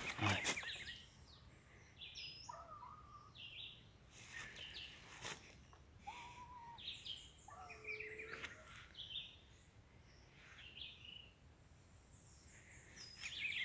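Wild birds calling, faint: short chirps and whistles from several birds, with one low hoot about eight seconds in; juriti doves are among the singers. A few brief snaps or rustles of brush.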